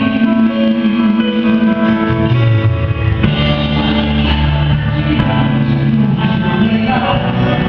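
Worship band playing an instrumental passage between sung lines, with guitar and bass over sustained chords.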